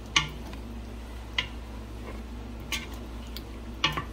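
Wooden spoon stirring beef in a thick yogurt-and-spice masala in a nonstick pot, knocking sharply against the pot four times, a little over a second apart, over a steady low hum.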